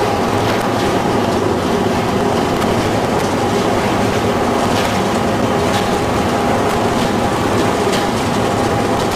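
Steady din of brick production-line machinery running, with a belt conveyor and its drive motors among it: a constant hum with scattered light clicks and rattles.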